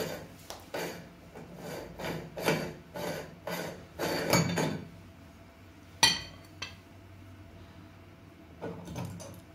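Gritty metal scraping strokes, about two a second, as the retaining ring of a hand meat grinder is twisted loose against crushed stress-ball bead grit, followed by a sharp metallic clank about six seconds in as the ring comes free.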